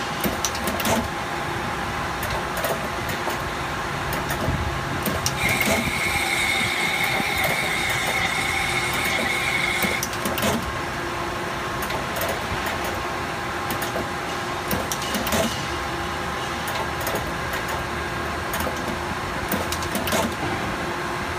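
Industrial rotary machine running steadily, with a continuous hum and a dense stream of small mechanical clicks. A high steady whine joins about five seconds in and stops abruptly about ten seconds in.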